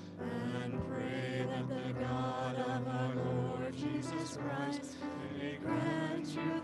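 A small vocal trio of one woman and two men singing a hymn in harmony, accompanied by a grand piano.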